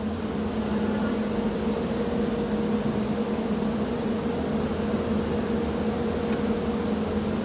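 Steady mechanical hum with two held tones, one low and one a little higher, over an even background rush.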